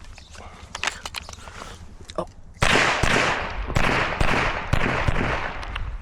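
Pistol shots fired in a string: a few lighter cracks early on, then several loud shots from about two and a half seconds in, each ringing out after the crack.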